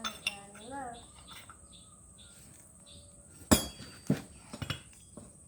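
A short voice about half a second in, then a run of sharp metallic clinks and knocks in the second half, the first one the loudest: tools and turbocharger parts being handled during assembly.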